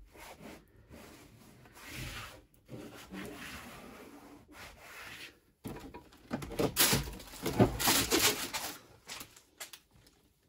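STP BlackTon sound-deadening sheet being pressed and rubbed flat against a car's body panel, in irregular rubbing strokes that are strongest from about six to nine seconds in.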